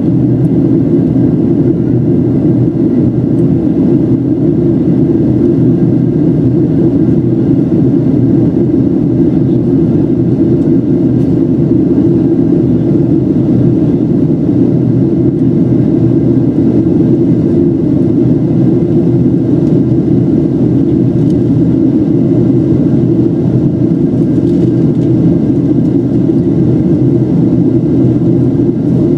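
Steady, loud cabin roar of a Boeing 737's CFM56-7B jet engines in the climb after takeoff, heard from a window seat by the wing inside the cabin. A low, even rush with a faint steady whine above it.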